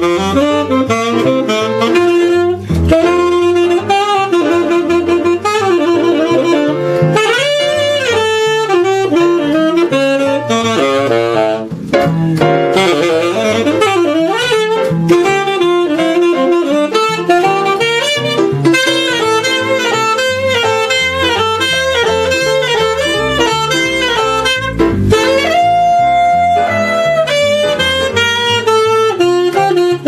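Tenor saxophone playing a jazz solo in fast runs of notes, with piano and bass accompanying.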